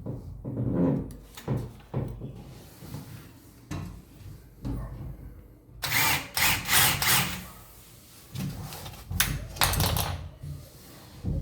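Power drill running in two short bursts, with scattered knocks and clicks between them.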